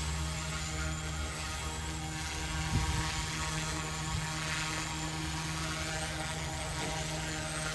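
Yu Xiang UH-1 Huey remote-control helicopter's electric motors and rotor blades running steadily in flight, with a high motor whine that wavers up and down as the throttle changes. The pilot is bringing it in for a landing.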